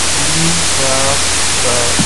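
Loud steady hiss of recording noise with a low electrical hum under it, and a faint voice in the background about halfway through.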